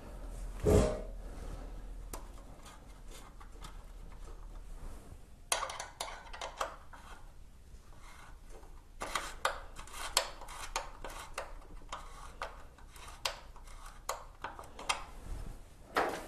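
Small metal parts clinking and scraping as they are handled and fitted by hand at a motorcycle's rear axle chain adjuster, with a louder knock just under a second in and clusters of clicks after it.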